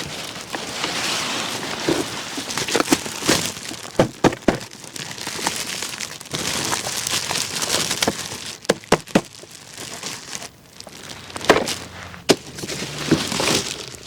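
Packaging being handled and unwrapped: crinkling and rustling in spells, broken by many sharp clicks and taps.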